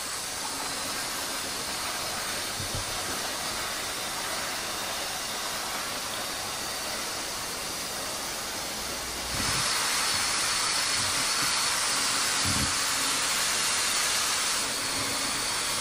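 Steady, hiss-like running noise of an H0m model train rolling along its track, stepping up in loudness about nine seconds in.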